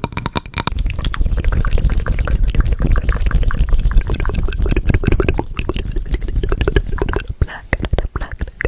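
Close-miked ASMR trigger sounds: dense, rapid wet clicking and crackling with a low rumble underneath, thinning out near the end.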